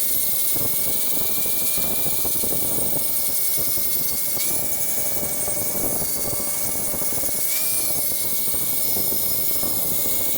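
Power grinder running steadily as the forged wootz steel tanto blank is ground to profile, a steady whine over grinding hiss that wavers briefly in pitch twice.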